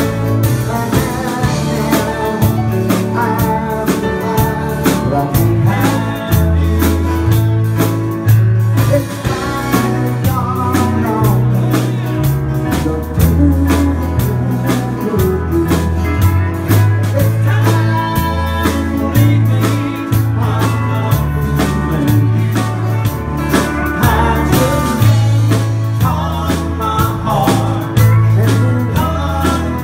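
Live country band playing, with a man singing lead over acoustic and electric guitars, a bass line and drums.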